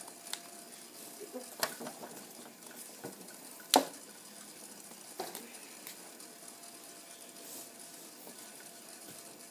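A handful of light, scattered clicks and knocks over a faint steady hiss; the sharpest knock comes nearly four seconds in.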